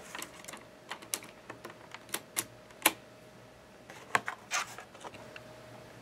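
Plastic keycaps clicking on the Cherry MX switches of a mechanical keyboard as they are pressed down: about a dozen sharp clicks at irregular spacing, with a faint steady hum beneath.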